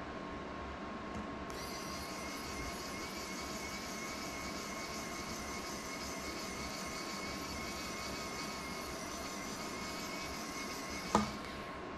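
A small electric blower whirring with a steady high hiss and a faint whine. It switches on about a second and a half in, and a sharp click comes just before it cuts off near the end, over a constant low electrical hum.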